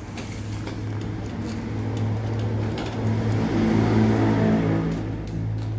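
A box cutter slitting the packing tape on a cardboard box, under a steady low hum that swells louder about two-thirds of the way through.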